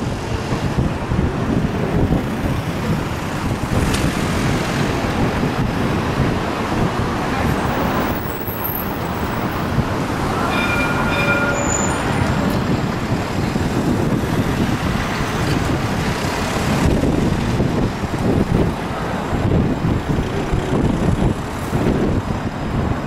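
Street traffic and a Luas light-rail tram rolling slowly past, a steady low rumble. A short high-pitched tone sounds about ten seconds in, and a car goes by near the end.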